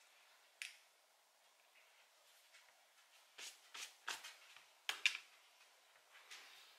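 Faint clicks and scrapes of hands handling a makeup pencil: one click about half a second in, then a quick cluster of them between about three and a half and five seconds.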